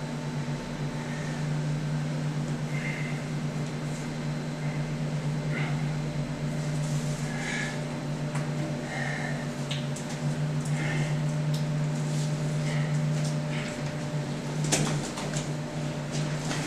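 Steady low mechanical hum inside a steel tank, with scattered metallic clinks and knocks of a chain and hook being handled, a cluster of them near the end.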